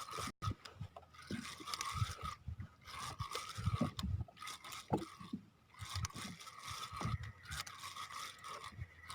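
Fishing tackle handled while a hooked fish is reeled in: irregular scrapes and clicks over a faint steady whine.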